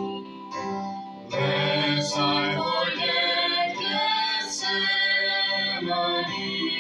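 Live hymn singing with keyboard accompaniment. The music drops back for a moment about a second in, then comes in fuller.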